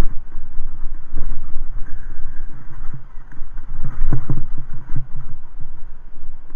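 Heavy wind noise buffeting the microphone of a camera on the move, an uneven gusting rumble, with short knocks from riding over a rough path, a cluster of them about four seconds in.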